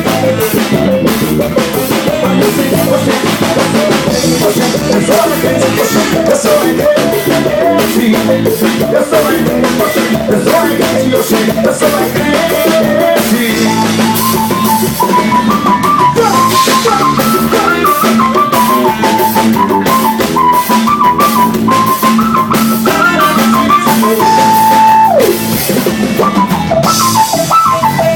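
Live band playing an instrumental passage with a steady drum-kit beat and bass. About halfway through a high lead melody comes in over it, and near the end one held note glides down.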